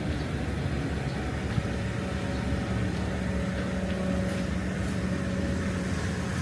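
A motor vehicle's engine running, a steady low hum over a continuous rumble.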